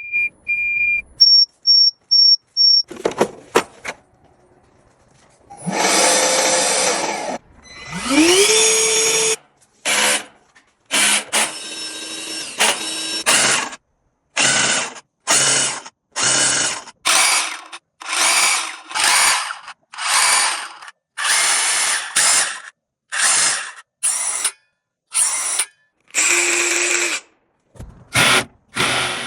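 Bosch Professional power tools running in a string of short bursts, one after another. A few high electronic beeps open it. Then a motor spins up with a rising whine, and after that come many separate bursts of about a second each, cut off by brief silences.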